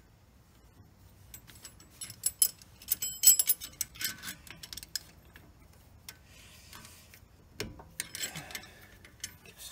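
A hand wrench clicking and clinking on the threaded screw of a brake caliper piston tool as it is tightened against a rear brake caliper. There is a dense run of sharp metal clicks about two to five seconds in, and more near the end.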